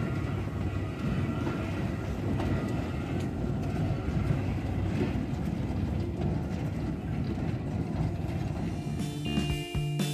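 Snowdon Mountain Railway rack-railway train pulling away, with a steady low rumble and a few faint clicks. Music comes in near the end.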